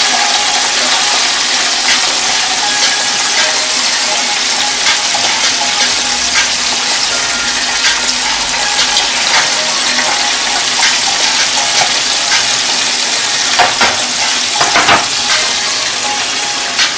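Chicken wings deep-frying in hot oil in an electric deep fryer, the oil sizzling and crackling steadily, with a few sharper crackles a little before the end.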